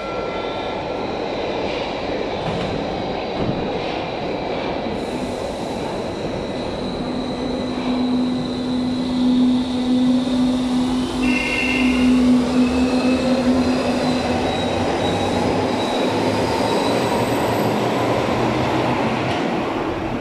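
Berlin U-Bahn class H train pulling out of the station and accelerating past. Under the rolling rumble of the cars, the drive's whine climbs steadily in pitch, with a steady low hum in the middle and a brief high squeal about eleven seconds in.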